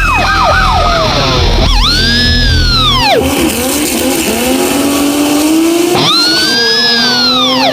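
Car chase sound effects over music: two long tire squeals that each rise and then fall in pitch, with a car engine revving up between them.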